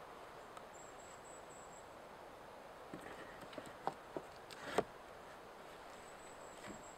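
Wooden poles of a stick chair frame knocking and clacking against each other as they are fitted together by hand: a handful of short knocks about three to five seconds in, the last one the loudest, over a faint steady outdoor hiss.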